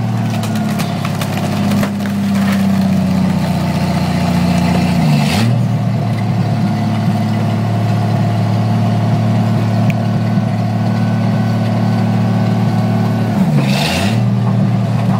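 Chrysler gas engine powering the hydraulics of a Kemsco NutCracker car crusher, running steadily while the crusher presses a junk car. Twice, about five seconds in and again near the end, the engine's pitch dips under load and recovers, each time with a short harsh noise.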